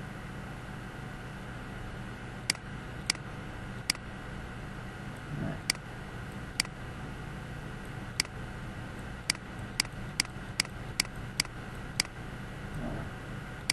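Computer mouse clicking: single sharp clicks at uneven gaps, coming faster, about two a second, in the latter half, over a steady low hum of background noise.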